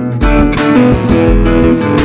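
Background music led by guitar over a bass line.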